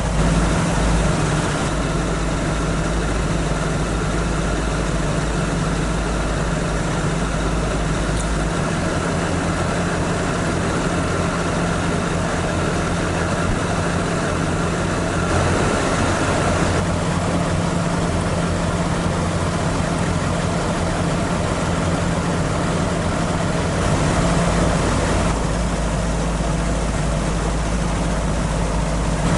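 Toyota AE86 Sprinter Trueno's 4A-G twin-cam four-cylinder engine idling steadily, with slight changes in its sound about halfway through and again near the end.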